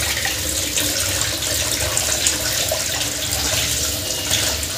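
Tap water running steadily onto a stainless-steel mesh strainer of roselle calyces and splashing into a sink, while a hand rubs and turns the calyces under the stream to rinse them.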